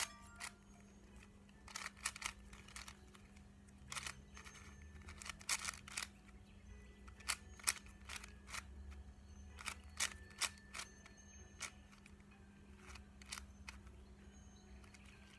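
A new 4x4 speed cube and its plastic packaging being handled, giving irregular sharp plastic clicks and taps, one or two a second, over a steady low hum.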